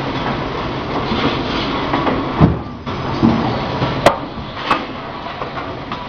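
Automated sheet-metal production line for solar water heater tanks running with steady mechanical clatter. There is a low thump about two and a half seconds in, then two sharp metallic clanks about half a second apart near the four-second mark.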